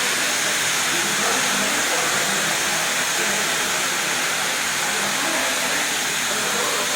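Fully automatic carpet washing machine running, making a steady, even hiss.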